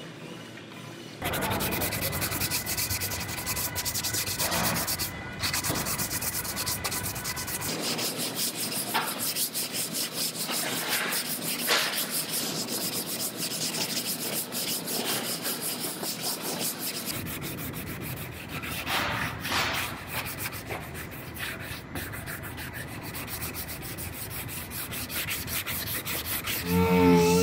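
Hand sanding of body filler with a sanding block: sandpaper scraping back and forth over the cured filler in a quick, continuous run of strokes that starts about a second in.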